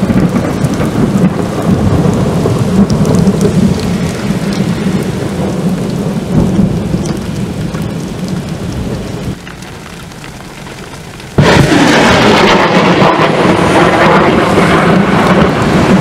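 Thunderstorm: thunder rumbling over steady rain. About nine seconds in it quietens for a couple of seconds, then about eleven seconds in the storm noise comes back suddenly, much louder and sharper.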